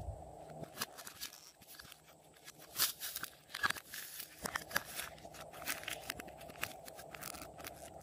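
Thick purple slime peeled off its plastic tray and handled, giving irregular sticky crackles and pops, loudest about three to five seconds in.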